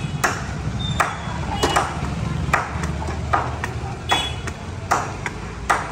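Steady hammer blows, about eight of them, one every second or a little less, several with a short metallic ring. Under them runs a steady low hum.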